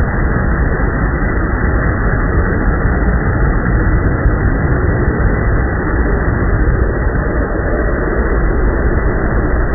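Turbocharged LS V8 in a Chevy S10 drag truck idling steadily as the truck creeps up to the starting line, a loud, even engine rumble.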